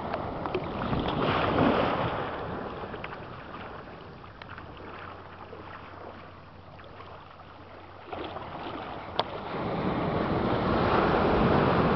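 Small waves washing in at the shoreline: a surge of wash about a second in that ebbs away, then a fresh wash rushing in about eight seconds in and building. Wind rumbles on the microphone.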